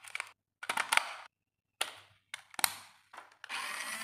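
AA batteries being fitted into the plastic battery compartment of a toy RC remote control and the cover snapped shut: a string of short plastic clicks and rattles. Near the end a steady mechanical whirr sets in.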